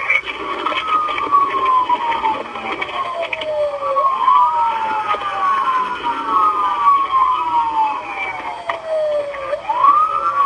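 Police car sirens wailing. Each sweep rises quickly and then falls slowly over about four seconds, and two sirens overlap for part of the time.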